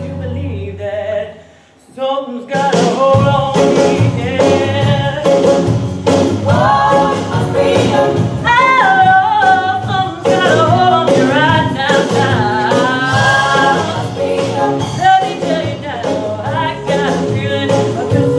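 A woman singing a soul-style ballad live into a handheld microphone with band accompaniment. It opens softly and drops briefly almost to silence, then about two and a half seconds in the full accompaniment with drums comes in under her voice.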